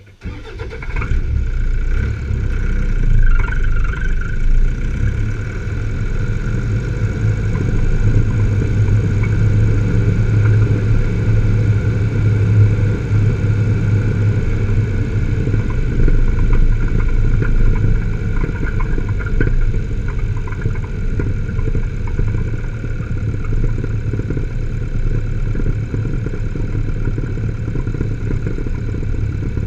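Vehicle driving on a sealed road: steady engine and road noise, mostly low rumble, starting abruptly at the outset.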